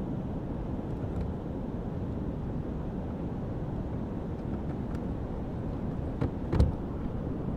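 Steady rush of turbulent, foaming river water churning below a dam. A few sharp knocks come near the end, the loudest about six and a half seconds in.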